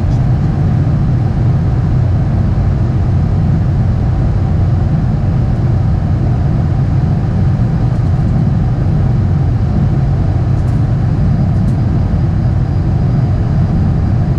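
Steady low rumble of an Airbus A380 flight deck in flight, descending on approach: airframe and air-conditioning noise, with no change in level.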